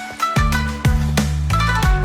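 Background music: an upbeat track with plucked guitar-like notes over a steady beat, about two beats a second.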